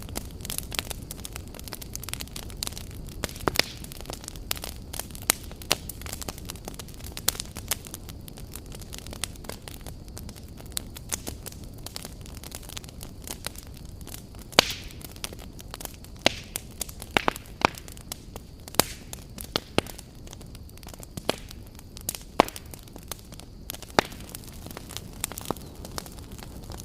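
Wood fire crackling, with irregular sharp pops and snaps over a steady low rumble of burning logs.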